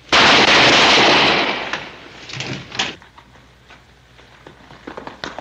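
A sudden loud crash, harsh and noisy, that holds for about a second and then fades, followed by scattered sharp knocks.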